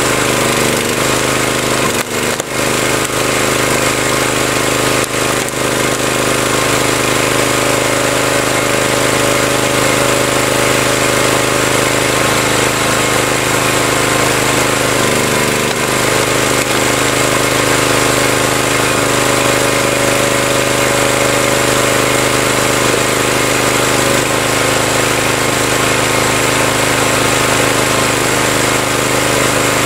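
Engine of a hydraulic wood splitter running steadily, its note dipping briefly about halfway through and shifting again later as the load changes.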